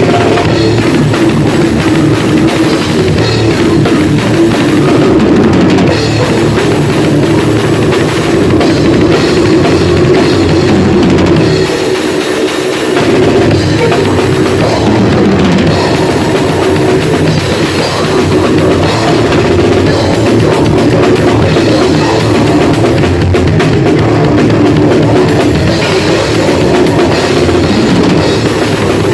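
Grindcore band playing loud and dense: a drum kit with bass drum and cymbals under a heavy, full-band wall of sound. The lowest notes drop out briefly about twelve seconds in.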